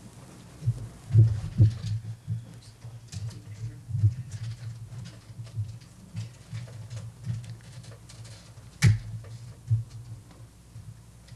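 Handling and movement noise: irregular soft low bumps with scattered light clicks, and one sharp click about nine seconds in.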